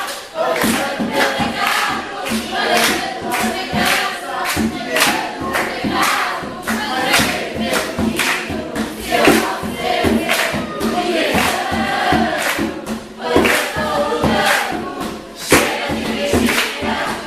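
A song with many voices singing together over a band, with a steady drum beat of about two beats a second.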